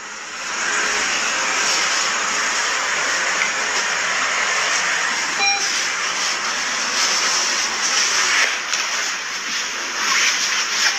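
A steady rushing noise with no speech, rising about half a second in, with a brief faint tone about five and a half seconds in.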